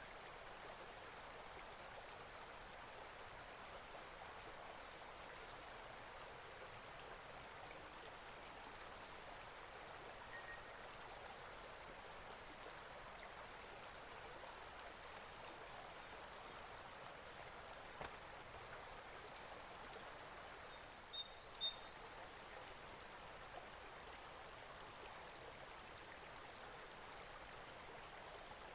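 Faint, steady rush of running water, like a stream. About three-quarters of the way through, a bird gives a quick run of about five short, high chirps.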